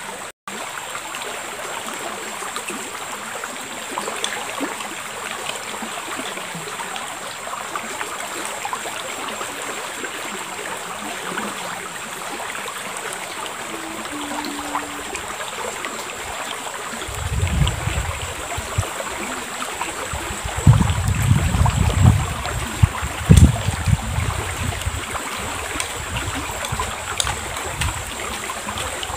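A shallow river flowing steadily, a constant even rush of water. From a little past halfway, low gusts of wind rumble on the microphone.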